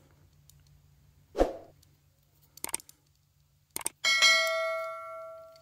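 Sound effects of a subscribe-button animation: a short swoosh about a second and a half in and a few mouse clicks, then a bell ding about four seconds in that rings on and is cut off.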